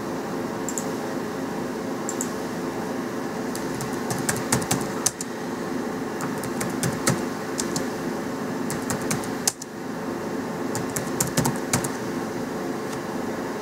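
Computer keyboard typing: several quick runs of keystroke clicks with short pauses between them, over a steady background hum.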